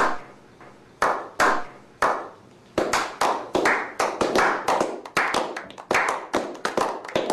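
A slow clap: a few single hand claps about a second apart, then from about three seconds in more hands join and the clapping speeds up into applause by a small group.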